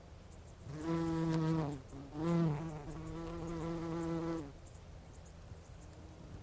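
Bumblebee buzzing in flight: a low, steady hum that starts about a second in, dips and breaks off briefly near the two-second mark, then comes back and runs on until it stops about four and a half seconds in.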